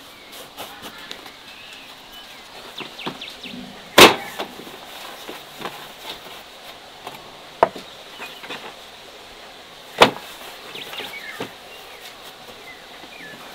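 Sharp knocks: two loud ones about six seconds apart and a lighter one between them, with scattered small taps and clicks.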